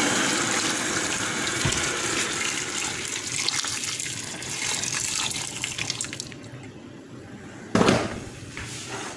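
Water being poured into a cooking pot of chicken, a steady splashing rush that tapers off about six seconds in. A single sharp knock comes near the end.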